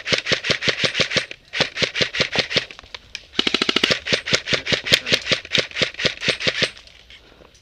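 Airsoft guns firing full-auto in long bursts, about seven shots a second. A faster rattle joins about three and a half seconds in, and the firing stops about a second before the end.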